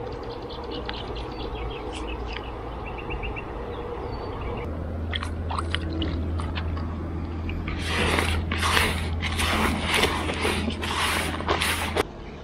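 Gloved hands squeezing and kneading a wet, doughy bait mix in a plastic bucket, giving a run of squelching, scraping squishes that grow loud from about halfway through.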